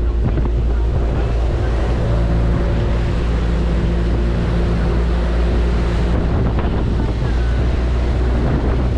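Boat engine running steadily under heavy wind buffeting the microphone, with waves of a choppy sea washing against the hull.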